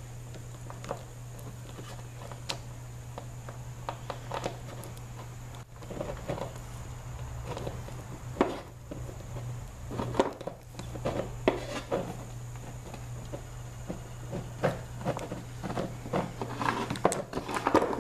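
Metal tools clicking, clinking and knocking against a mini bike roller chain while a pin is worked out of a link to shorten it, irregular and busier in the second half, over a steady low hum.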